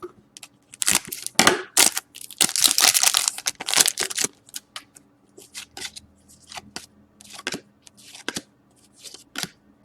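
A hockey card pack's wrapper being torn open and crinkled for about the first four seconds, then quieter short clicks and snaps as the cards are handled and flicked through.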